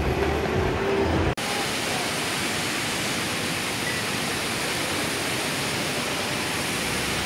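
About a second in, indoor mall background cuts off to a steady, even rush of splashing fountain water.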